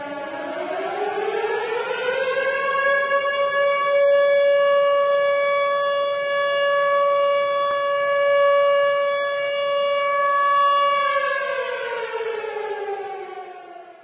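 Tornado siren wailing. Its pitch bottoms out at the start, winds up over about three seconds, holds one steady wail for about eight seconds, then winds down near the end.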